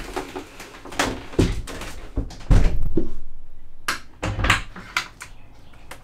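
The wooden camper's rear door and hatch being worked by hand: a series of knocks and clunks from the panels and latches, the loudest a heavy low thud about two and a half seconds in. The thuds ring inside the small plywood box.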